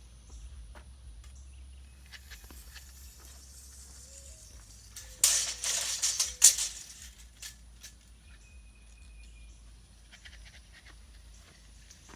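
Steel tape measure being worked along a log: scattered light clicks, then one loud rattling, scraping burst lasting about a second and a half, about five seconds in.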